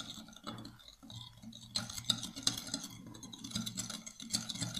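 Metal spoon stirring a liquid mix of red wine, oil and sugar in a glass bowl, with quick, irregular clinks and scrapes of the spoon against the glass.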